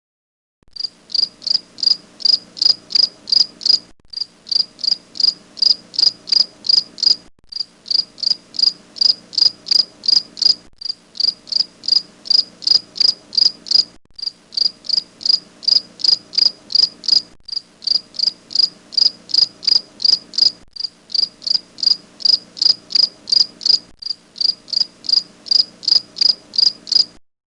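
A cricket chirping in a steady rhythm, about three chirps a second. A short recording is looped, so the chirping breaks off briefly every three seconds or so.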